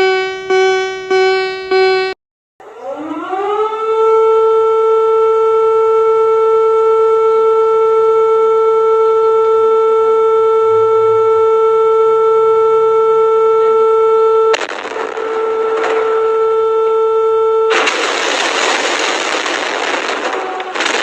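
A few rapid, evenly spaced beeps, then a warning siren winds up from a low pitch to a steady, loud wail and holds it. About fifteen seconds in, a loud rushing noise comes over the siren and grows louder near the end.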